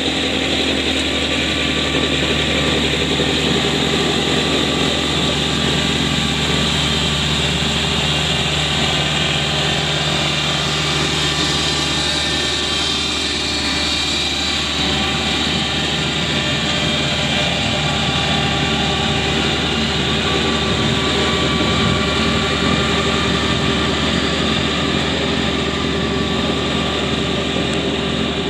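Kubota B3200 compact tractor's three-cylinder diesel engine running steadily while its front-mounted snowblower throws slush. The hum shifts a little near the middle as the tractor passes close by.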